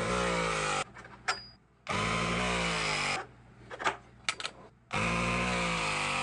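Battery-powered Vevor SL1930 mini press tool with three-quarter-inch jaws pressing copper press fittings. Its motor runs in three spells of a second or more, its pitch falling during each one. Sharp clicks of the pipe and fittings being handled fall between the spells.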